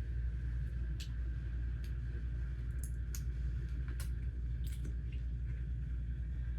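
Plastic Lego pieces being handled and clicked together: about half a dozen short, sharp clicks spread over a few seconds. A steady low hum underlies them.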